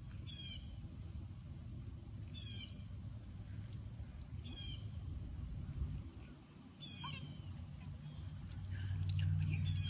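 An animal's short, high, mewing calls, four of them about two seconds apart, over a steady low rumble that grows louder near the end.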